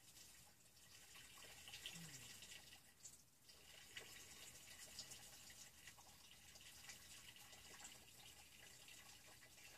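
Faint dripping and trickling water: scattered small drips and ticks over a soft hiss.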